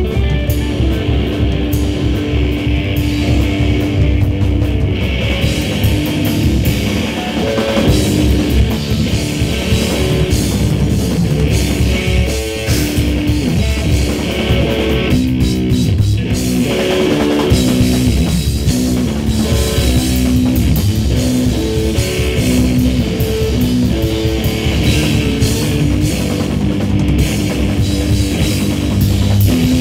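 Live instrumental math rock: an amplified electric guitar plays shifting, repeating note patterns over a full drum kit with busy cymbals.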